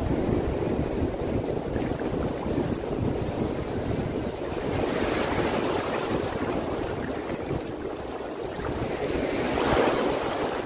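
Shallow sea surf washing and fizzing in foam, with wind rumbling on the microphone. The wash swells twice, about five seconds in and again near the end, as waves run through.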